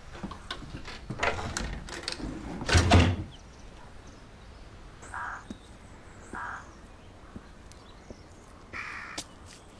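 A door being shut: a few clicks and knocks, then a heavy thump about three seconds in. After it, only a few short faint sounds.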